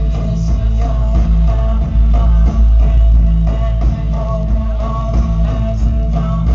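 Live rock band playing loudly: heavy bass, electric guitar and keyboards over a steady beat.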